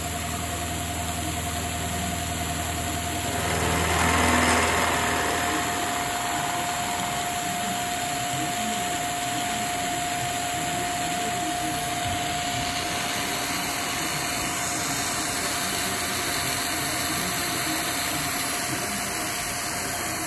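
Milling machine spindle turning a four-insert carbide face mill through a steady cut in 4140 pre-hardened steel, running smoothly without chatter. It makes a continuous whine over an even hiss. A low hum underneath swells about four seconds in and then drops away about six seconds in.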